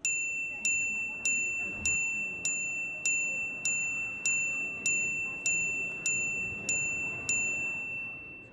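Electronic chime tone from flash mental-math software, a single ringing note struck thirteen times at about one every 0.6 seconds, each marking the next number flashed on screen for adding and subtracting.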